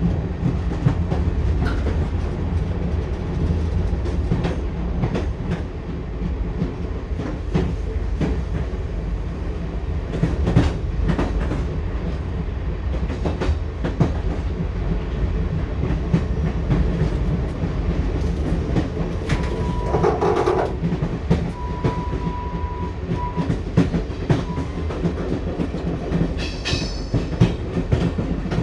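Passenger train running along the track: a steady rumble with the rhythmic clickety-clack of the wheels over rail joints. A short steady high tone comes in about two-thirds of the way through, and a brief high-pitched sound comes near the end.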